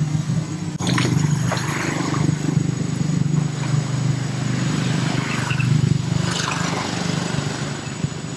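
Macaques swimming in a pond, water splashing and sloshing with several brief splashes, over a steady low motor-like drone.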